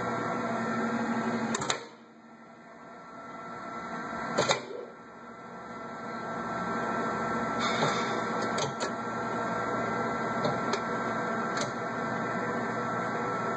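HEALD Model 271 internal grinder running with a steady machine hum. It shuts off with a click a little under two seconds in, a second click comes a few seconds later, and the machine winds back up over a few seconds to a steady hum, with a few small clicks from the controls.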